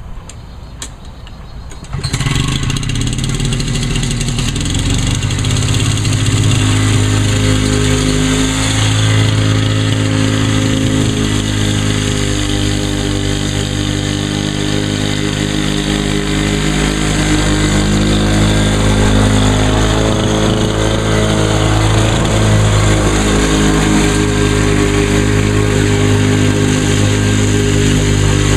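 2003 Lawn-Boy Duraforce 10323 walk-behind mower's two-stroke engine catching about two seconds in, then running steadily at speed, its pitch wavering slightly.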